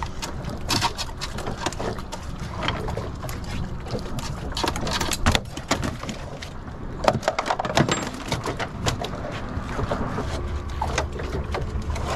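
Irregular clicks, knocks and slaps as a sheepshead is unhooked with a metal dehooker and handled on the deck of a small skiff.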